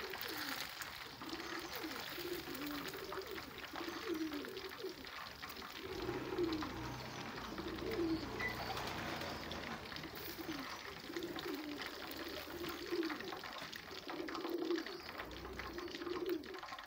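Pigeons cooing over and over in low repeated phrases, with a faint steady hiss of oil frying underneath.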